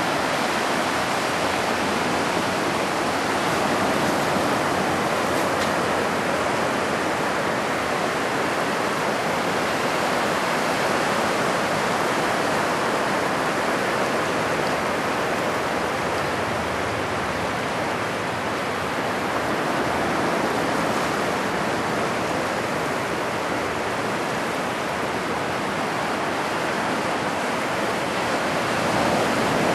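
Ocean surf breaking and washing up a sandy beach: a steady rushing wash with slow, gentle swells in loudness.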